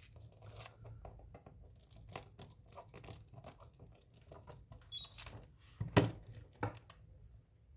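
Light rustling and small clicks of objects being handled at a bench, with a brief high electronic chirp about five seconds in and a sharper knock about a second later.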